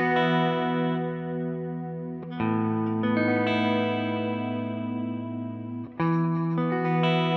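Telecaster-style electric guitar playing ambient math-rock chords at the seventh fret, the notes ringing on and overlapping: an Esus2 voicing, a change to Asus2sus4 about two and a half seconds in, and back to Esus2 about six seconds in.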